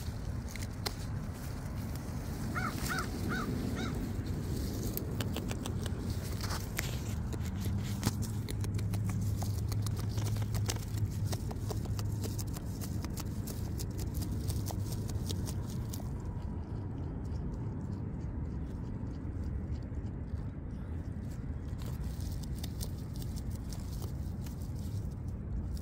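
Beaver chewing leaves and stems close by: many quick crunching clicks with rustling foliage, busiest in the first half and thinning out later. A bird calls four short notes about three seconds in, over a steady low rumble.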